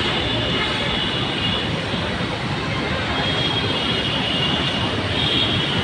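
Steady road traffic noise from a busy city street, a continuous mix of vehicle engines and tyres.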